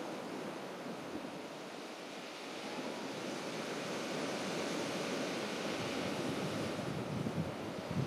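Sea surf washing steadily on a shingle beach, mixed with wind, growing a little louder in the second half.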